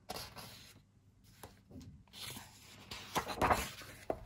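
Pages of a paperback coloring book being turned by hand: a few short paper swishes and rustles, the loudest about three and a half seconds in.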